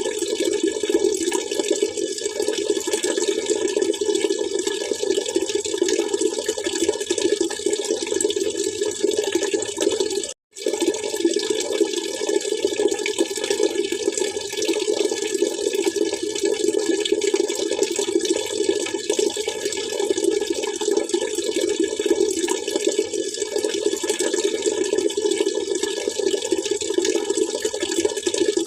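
Steady splashing, trickling water, even and unbroken except for a split-second dropout to silence about ten seconds in.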